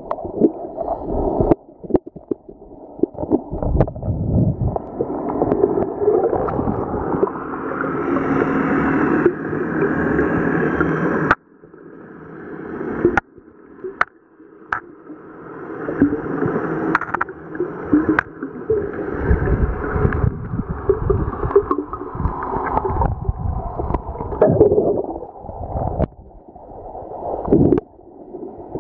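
Muffled underwater sound picked up by a submerged camera in the sea: a churning wash of water movement and bubbling, with scattered sharp clicks and knocks. The sound changes abruptly where the shots cut.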